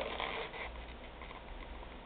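Latex modelling balloon rubbing and squeaking under the fingers as it is twisted and handled, louder in the first half second.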